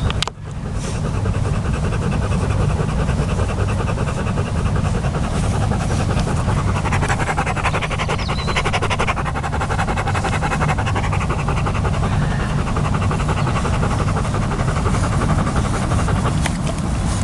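Steady wind buffeting the microphone, a continuous low rumble with a rushing hiss over it.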